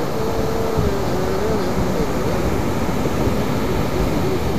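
Wind buffeting the microphone over the steady wash of surf breaking on the beach, with a thin wavering tone above it.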